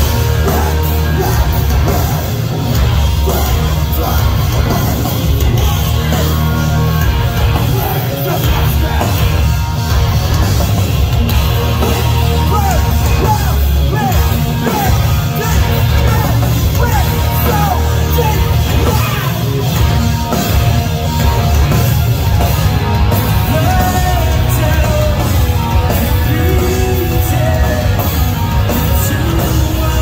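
Live metalcore band playing loud, with electric guitars, bass and drums, and a singer alternately yelling and singing over them.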